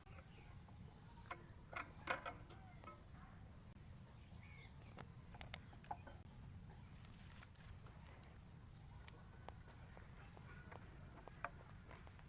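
Near silence: faint background hiss with a steady high-pitched whine, broken by a few small clicks and knocks, the loudest a short cluster about two seconds in.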